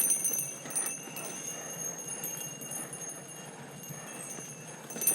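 Mountain bike ridden along a dirt trail: the bike rattling and clicking over the ground, with a steady high-pitched ringing throughout.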